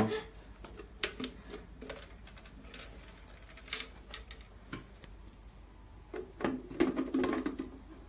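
Irregular light plastic clicks and knocks from an Arnica bagless vacuum cleaner's plastic dust container and filter housing being handled and fitted together.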